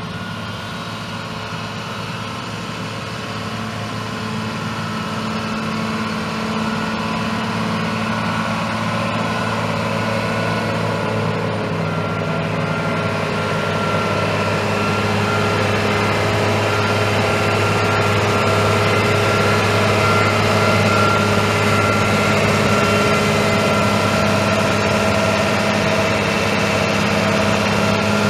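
Case IH 6.7L six-cylinder turbo diesel engine of a Case IH Magnum 190 tractor running steadily at an even speed, growing gradually louder over the stretch.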